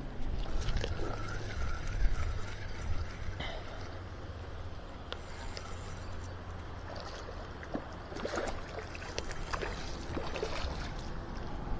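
A hooked fish being reeled in to the bank: water splashing and gurgling, with scattered small clicks and knocks from the rod and reel, over a steady low rumble.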